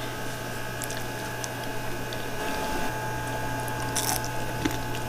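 Crispy fried chicken wings being bitten and chewed close to the microphone: scattered crackling crunches, the sharpest about four seconds in, over a steady low hum.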